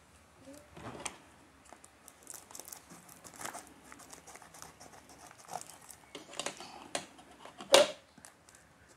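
Plastic parcel wrapping being torn open and crinkled by hand, an uneven run of rustles and crackles with one sharper, louder crackle just before the end.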